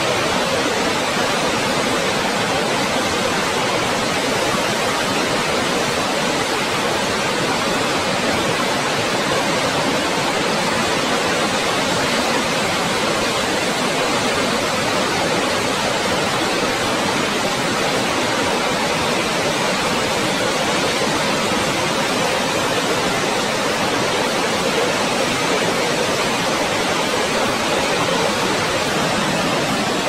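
Dettifoss waterfall's heavy torrent plunging into its canyon: a loud, steady, unbroken rushing of water.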